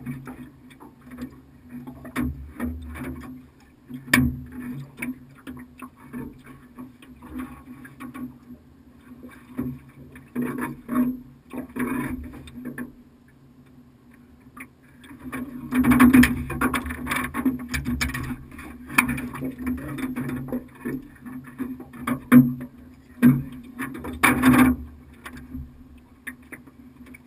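Scattered knocks and clatter in a small aluminum fishing boat, over a steady low hum. The knocks grow denser and louder for several seconds past the middle.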